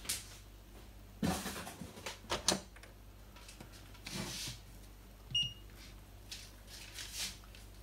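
Handling noises on a workbench: a few thumps and rustles as a Fluke digital multimeter is set down and its rotary dial is turned. There is one short, high beep from the meter about five seconds in.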